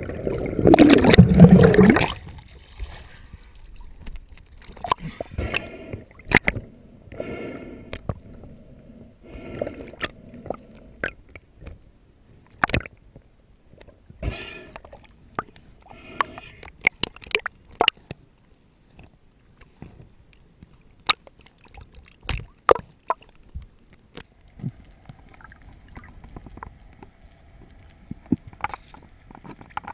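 Underwater sound on a freediver's camera: a loud gurgling rush of water in the first two seconds, then scattered sharp clicks and short gurgles.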